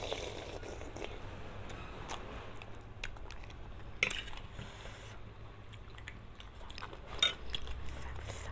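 Close-up eating sounds: instant noodles slurped and chewed in the first second, then a metal spoon clinking on a metal plate, with a sharp clink about four seconds in and another near the end.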